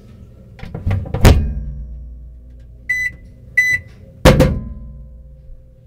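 Microwave oven being loaded and started: a cluster of knocks about a second in as the honey goes in and the door shuts, two short high keypad beeps a little over a second apart, then a loud thump just after four seconds, followed by a faint steady hum.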